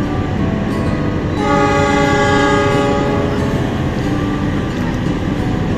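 Train horn sounding once, a multi-tone blast about a second and a half long, over the steady low rumble of a diesel train standing at a station platform. It comes just before the train departs.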